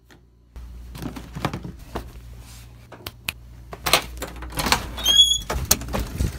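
A house door being unlocked and opened: a deadbolt and then a storm-door latch clicking and clattering, with the louder knocks about four to six seconds in and a short high squeak about five seconds in.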